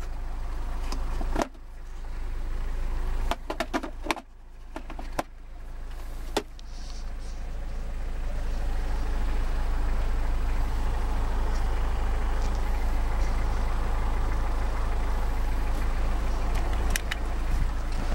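Toyota 2L-T four-cylinder turbo-diesel idling, heard from inside the cab as a steady low rumble. Several sharp clicks and knocks sound over it in the first few seconds, and once more near the end.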